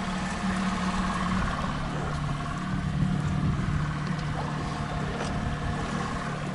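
Cabin motorboat's engine running steadily under way: a constant low hum with a faint steady whine above it, over an even hiss of water along the hull.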